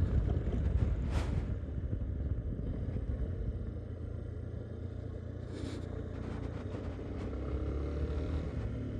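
Yamaha Ténéré 250's single-cylinder engine running steadily at a cruise on a dirt road, a continuous low rumble. Two short rushing noises come about a second in and again just past halfway.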